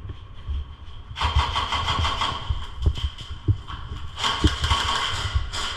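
Airsoft gun firing long full-auto bursts, a rapid rattle of shots: one from about a second in for two and a half seconds, a second shorter one after a brief pause, and a third starting near the end.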